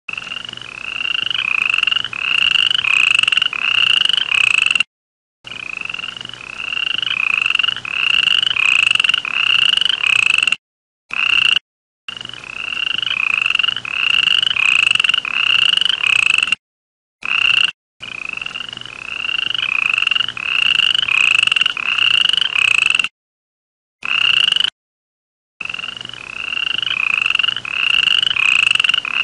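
A frog calling over and over, one short croaking note about every 0.6 s, each note rising slightly in pitch. The calling is broken off abruptly into dead silence several times and starts again.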